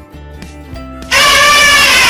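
Elephant trumpeting: one loud, brassy call about a second in, lasting about a second, over quiet background music.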